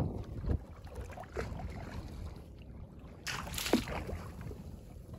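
Wind buffeting the microphone over open sea water, with a brief splash about three and a half seconds in as a squid is hauled to the surface on a hand line.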